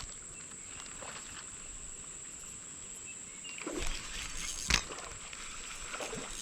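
Quiet outdoor ambience: a faint steady high-pitched whine over light hiss, with a few soft rustles and scrapes and one sharp click near the end.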